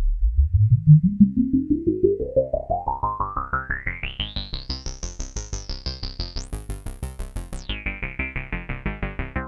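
Arturia MatrixBrute synthesizer playing a fast repeating sequenced pattern, about seven notes a second, through a Jove80 eurorack filter modelled on the Roland Jupiter-6/SH-101 filter. The filter cutoff sweeps steadily up from a dark, muffled tone to a very bright one over about five seconds, jumps brighter still around the middle, then drops back partway near the end.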